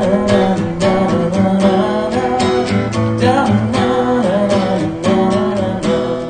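Acoustic guitar strummed steadily, live and amplified through a stage sound system, in an instrumental break between verses of a song.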